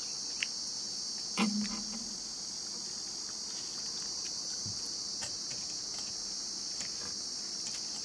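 A steady, high-pitched drone of chirping insects, typical of crickets, runs throughout. A few faint clicks of eating sit on top, and there is a short low hum about one and a half seconds in.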